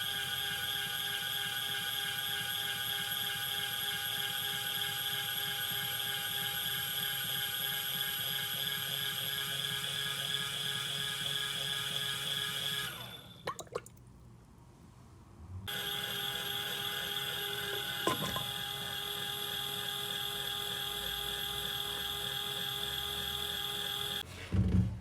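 Thanko PowerWashPot C-BWM21W mini washing machine running, its small motor humming steadily as it churns laundry in water. It stops about halfway with a couple of clicks, starts again a few seconds later, and stops once more near the end with a short knock.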